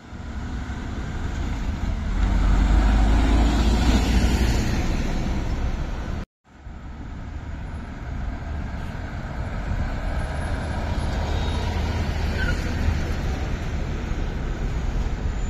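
Heavy articulated lorries with diesel engines (Mercedes-Benz Actros and Volvo FH tractor units) driving past close by, engine rumble and tyre noise, loudest a few seconds in. The sound cuts out for a moment about six seconds in and resumes with another lorry passing.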